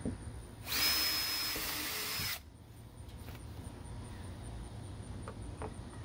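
Cordless drill spinning in one burst of nearly two seconds, a steady high whine, as it works into the hard plastic door handle accent. A couple of faint clicks follow near the end.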